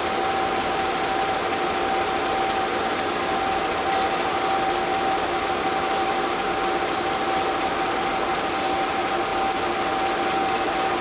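ČSD T679.1 'Sergej' diesel locomotive's two-stroke V12 diesel engine idling steadily while the locomotive stands, a constant engine noise with a steady high whine running through it.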